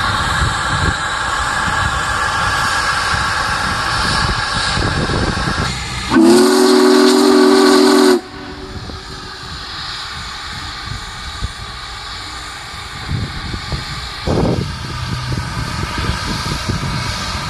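Union Pacific Big Boy No. 4014 steam locomotive running close by, with a steady rumble and hiss of steam. About six seconds in, its steam whistle sounds one loud chord for about two seconds and cuts off.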